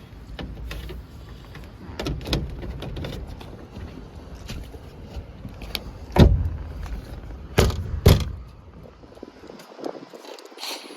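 Sheet-metal access panel being fitted back onto a rooftop air-conditioning unit: a series of knocks and clanks, three sharp ones loudest in the second half, over a steady low rumble that stops about nine and a half seconds in.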